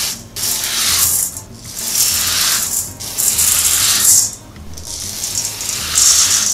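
Dry glutinous rice poured from a paper cup into a stainless steel bowl, one cupful at a time: about four pours, each a hissing rush of grains lasting a second or two, with short pauses between.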